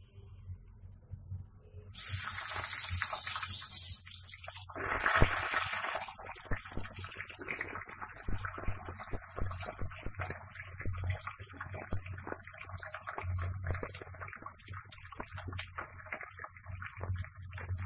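Steamed elephant apple pieces dropped into hot mustard oil in a karahi: a steady hiss, then a loud burst of sizzling about five seconds in as they hit the oil, settling into a continuous crackling, spattering sizzle.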